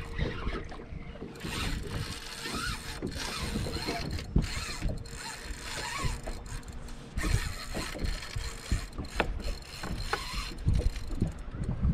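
Fishing reel cranked hard under load, its gears whirring and clicking unevenly, as a snagged spoonbill (paddlefish) is reeled in on a heavily bent rod.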